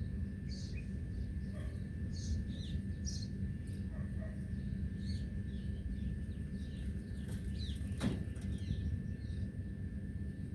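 Small birds chirping, many short high calls scattered throughout, over a steady low rumble, with one sharp click about eight seconds in.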